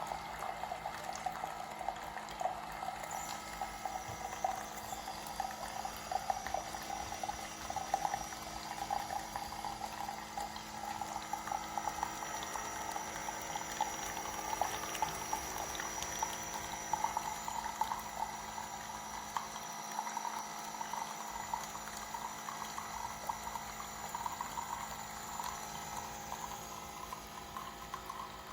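Keurig K-Mini single-serve coffee brewer heating and dispensing hot water, a steady bubbling and gurgling with fine crackle as the water runs through the pod into the cup.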